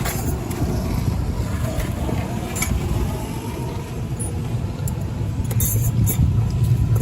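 A few light metallic clicks and clinks from brake parts being handled during front brake pad reassembly, over a steady low rumble.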